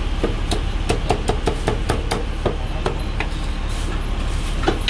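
Chinese cleaver chopping roast pork on a thick wooden chopping block: a quick run of sharp knocks, about four to five a second, over a steady low hum.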